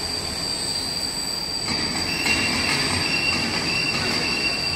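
Helical-gear-driven pipe welding turning rolls running: a steady mechanical rumble with a constant high whine. Louder from under two seconds in, with a high squeal that comes in after about two seconds and fades near the end.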